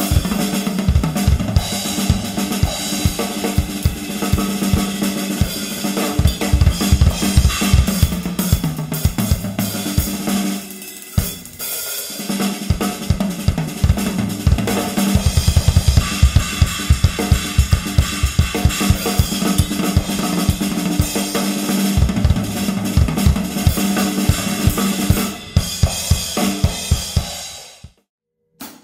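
Acoustic drum kit played solo at 150 bpm: fast triplet figures across snare, toms and bass drum, with crash, ride bell and china cymbal hits. It eases off briefly about eleven seconds in and stops near the end.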